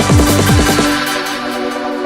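Electronic dance music: a steady kick-drum beat under held synth chords, the kick drum dropping out about halfway through and leaving the chords sounding on.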